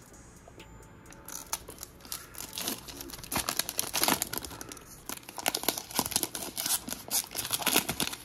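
Wrapper of a basketball trading-card pack crinkling and tearing as it is pulled open by hand. The crackle starts about a second in and goes on in irregular spurts.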